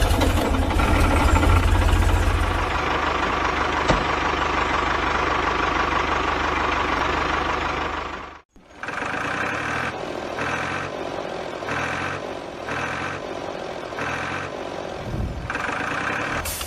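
Engine-like running sound, steady with a low rumble, cutting out about eight and a half seconds in. It then resumes with an even pulsing about once a second.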